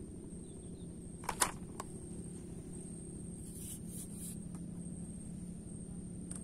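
A steady low hum under a thin, steady high insect drone, broken by a sharp click about a second and a half in, a fainter one just after, and brief rustling around four seconds in from handling of the fishing gear.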